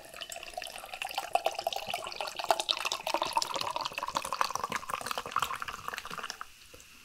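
A fizzy raspberry drink poured from a can into a pint glass: a steady pour with a dense fizzing crackle, its pitch rising as the glass fills. The pour stops about six seconds in.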